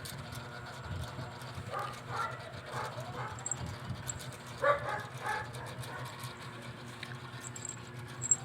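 Short high-pitched calls from a small pet animal, in a cluster about two seconds in and another, louder one about four and a half seconds in, over a steady low hum.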